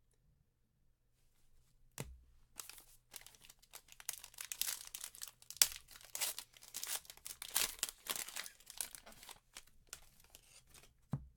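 Trading card packaging being torn open and crinkled by hand: a sharp click about two seconds in, then several seconds of rapid tearing and crinkling, with a thump near the end.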